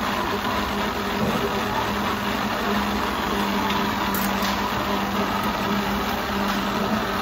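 A motor running steadily with an even, constant hum.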